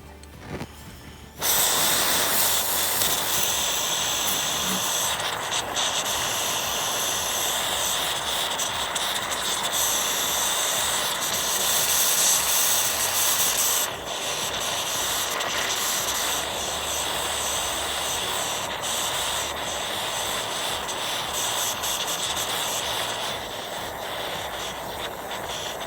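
Jeweller's soldering torch catching about a second and a half in, then burning with a steady hiss as it heats the fluxed piece to make the solder flow; the flame changes briefly near the middle.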